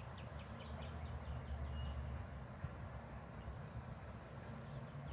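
Songbirds calling: a quick run of short, evenly repeated chirps, about five a second, through the first second or so, then a brief high call about four seconds in. A steady low rumble sits underneath.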